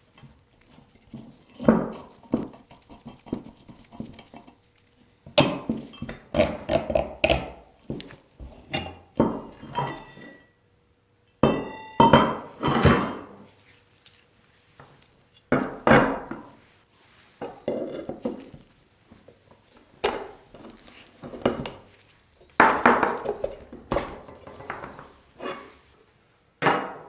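Metal parts and hand tools clinking, knocking and clattering on a workbench in irregular clusters, some clinks ringing briefly, as an old metal table fan is handled and taken apart.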